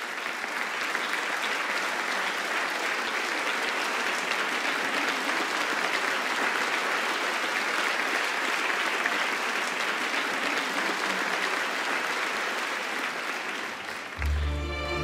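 A large audience applauding steadily. About fourteen seconds in, the applause dies down and the symphony orchestra begins with low held string notes.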